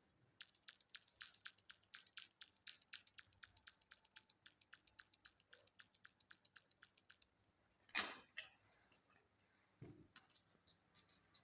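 Rapid, even small mechanical clicks, about five a second, for some seven seconds, then one sharp, louder click about eight seconds in and a soft knock near the end.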